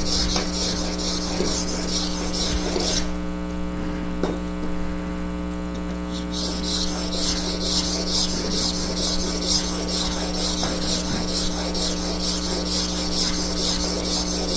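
A plane blade in a honing jig being rubbed back and forth on a water stone: a steady hissy scraping in regular strokes, which stops for about three seconds near the start and then resumes. A steady electrical hum runs underneath.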